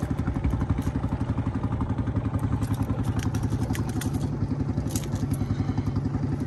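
A small engine running steadily with a fast, even putter, and scattered light clicks and clatter over it.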